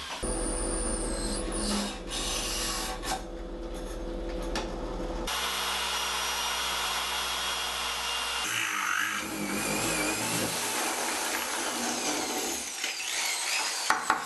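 Corded electric drills running under load as a multi-purpose bit bores through metal: first a piece of iron, then, after a change about five seconds in, a hardened steel threading tap. A few sharp knocks come near the end.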